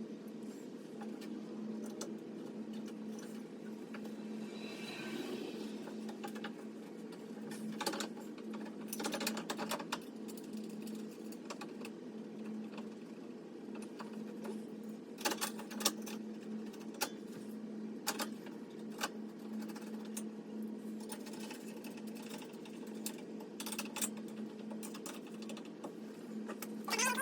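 A steady low hum from a small motor runs throughout, with scattered sharp clicks and light knocks of hand work on the car's headlight assembly.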